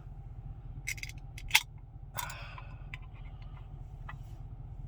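A few sharp clicks, the loudest about a second and a half in, and a short rustling hiss a little after two seconds, over a steady low hum.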